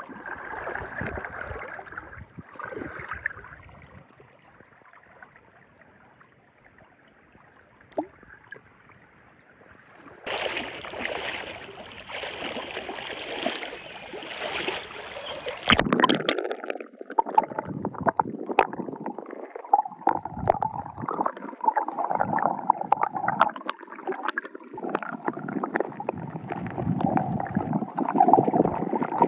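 Moving water sloshing and gurgling, quieter for a few seconds and then louder. In the second half, scattered clicks and knocks come through the water noise.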